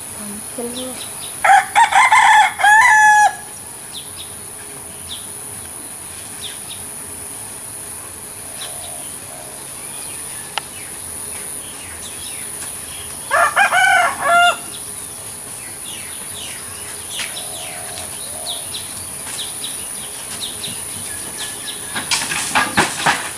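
A rooster crowing twice, each crow under two seconds long, over a steady high-pitched insect buzz; a quick run of sharp sounds comes near the end.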